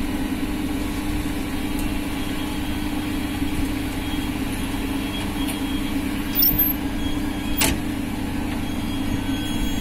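Steady low hum of electric trains standing at the platform, with one sharp click about three-quarters of the way through.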